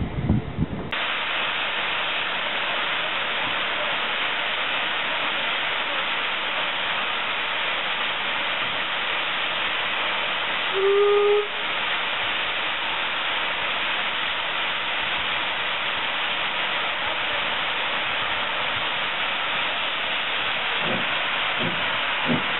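Saddle-tank steam locomotive letting off a loud, steady hiss of steam, with one short blast on its whistle about halfway through. Near the end its first exhaust beats come in as it moves along the platform.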